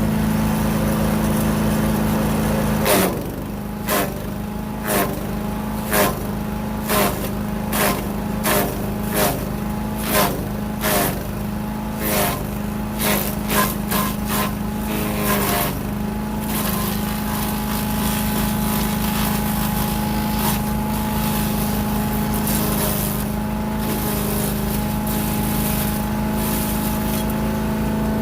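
Gas-engine wood chipper running, with brush being fed through: a run of sharp cracks about once a second as branches are chipped, each pulling the engine down briefly, for about thirteen seconds. After that the chipper runs steadily.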